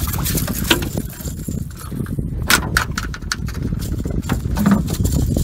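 Several sharp knocks as a landed striped bass flops against the aluminum boat deck and is grabbed, over a steady rumble of wind on the microphone.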